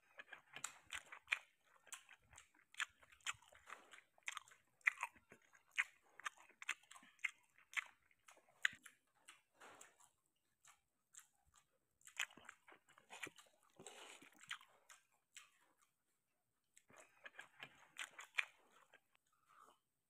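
Close-up wet chewing of sardines and rice, with many small mouth clicks, in three stretches broken by short pauses.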